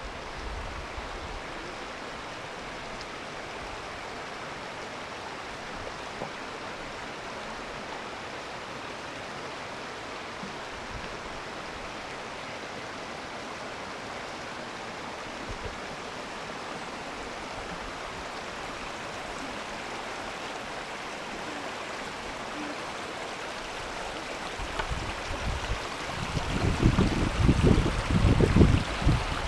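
Steady rushing of a mountain stream's cascades, the water pouring continuously over the rocks. In the last few seconds a low, uneven rumble rises beneath the water.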